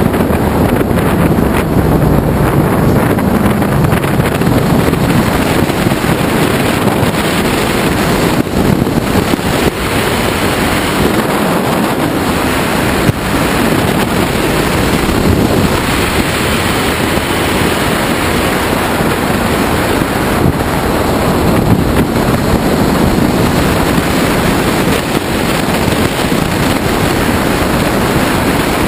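Steady wind rush buffeting the microphone of a camera riding on a moving Ducati Multistrada motorcycle, with the bike's engine running underneath.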